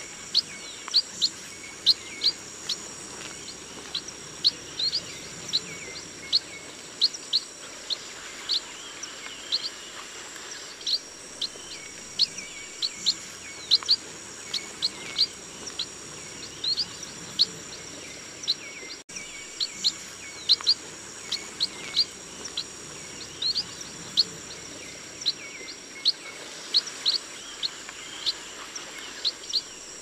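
Chestnut munias calling: a stream of short, thin, high chirps, several a second, over a steady high-pitched background hum.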